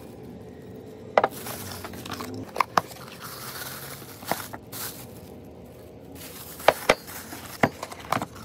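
Ceramic mugs being handled and set down on a wooden table, giving a string of sharp knocks and clinks, with cardboard box flaps and plastic wrapping rustling in between.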